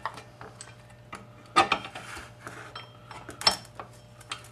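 Steel transmission gears and drive chain clinking and knocking against each other and the aluminium case as the gear assembly is lowered in and seated. There are scattered light clicks, with sharper knocks about a second and a half in and again about three and a half seconds in.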